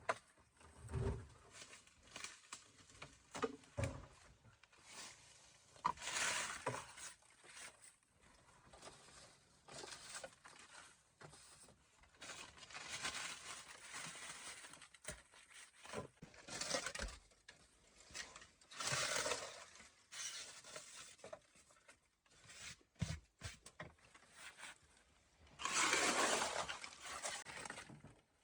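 Irregular scraping, brushing and knocking from hand work, with several one- to two-second stretches of hissing scrape and a few dull knocks; no engine is running.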